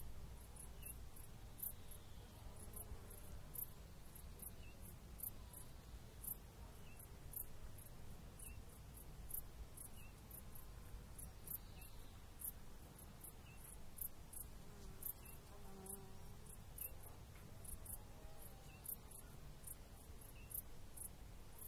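An insect chirping steadily, short very high-pitched chirps about twice a second, over a low rumble.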